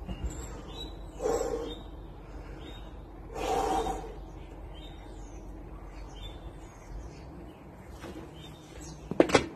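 A man blowing out two hard breaths a couple of seconds apart, bracing before a heavy dumbbell press, then a quick cluster of metallic clanks from the iron dumbbell plates near the end as he rocks back onto the bench with them.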